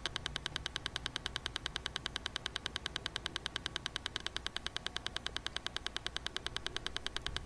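Rapid, even ticking of about ten clicks a second over a faint low hum: a background pulse track for guided meditation, ticking at the alpha-rhythm pace used in Silva Method recordings.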